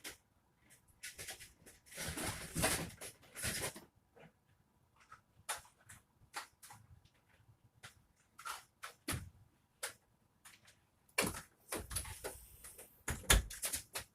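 Someone rummaging through a closet: scattered clicks and knocks of things being handled and moved, with bursts of rustling about two seconds in and again near the end.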